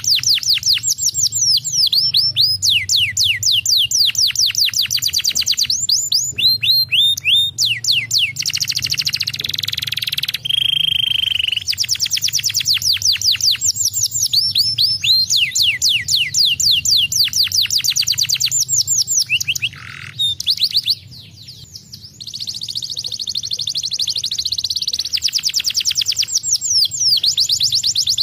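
Domestic canary singing long, fast rolling trills, each a quick falling note repeated many times a second. About ten seconds in, a held whistled note breaks the trills, and the song pauses briefly around twenty seconds in.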